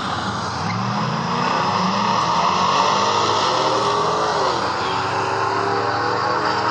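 Ram TRX's supercharged 6.2-litre Hemi V8 running as the truck creeps forward, its pitch rising about a second in and dipping briefly near the end, with a steady hiss over the engine note.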